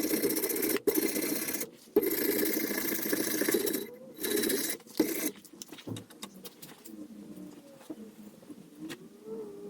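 A power grinder running with a steady grinding hiss, cut off abruptly several times and stopping about five seconds in; afterwards scattered light clicks and faint rising-and-falling tones.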